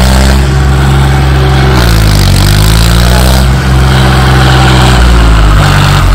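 Loud tractor diesel engine running hard under load, its pitch dipping about two seconds in and climbing back up as it is revved again.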